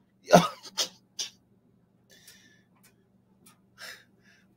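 A man's short burst of breathy laughter, then a few quiet snorts and huffs of breath, over a faint steady electrical hum.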